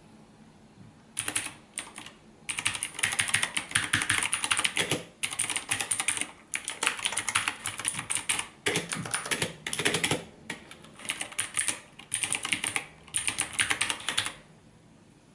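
Typing on a Redragon Kumara K522 mechanical keyboard with blue switches: fast runs of sharp key clicks broken by brief pauses. The typing starts about a second in and stops near the end.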